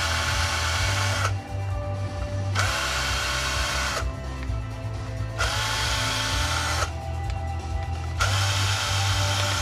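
Power drill run in four short bursts of a second or so each, spinning up at the start of each burst, with quieter gaps between.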